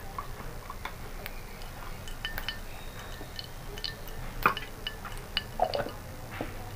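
Ghee melting in a hot pan, with scattered small crackles and ticks, and a spoon knocking against the pan about four and a half seconds in.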